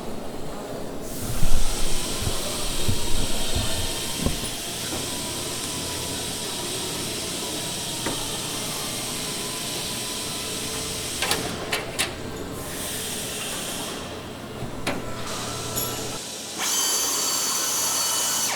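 Compressed air hissing steadily from a pneumatic tool, with a few sharp clicks, then an air drill running briefly near the end while a rivet is drilled out of the airframe.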